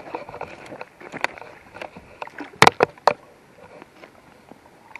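Water splashing and sloshing at the pond's edge with irregular sharp knocks from handling, the loudest pair of knocks a little past halfway.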